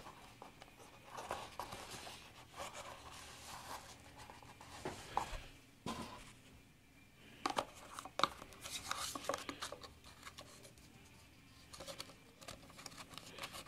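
Cardboard watch box and paper booklet being handled: scattered rustles and scrapes with a few light taps.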